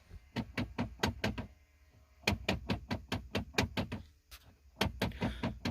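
Faulty HVAC blend door actuator behind the dash of a 2005 Nissan Titan making a slapping or knocking noise as the climate-control knob is turned: three runs of rapid knocks, about five a second, with short pauses between them. The noise is the sign of a bad actuator that needs replacing.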